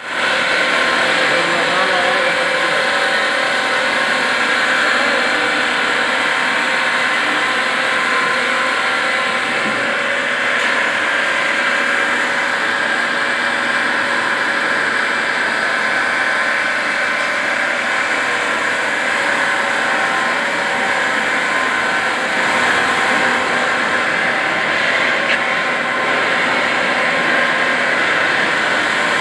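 Machinery running steadily, a constant even drone with a faint hum and no pauses or changes.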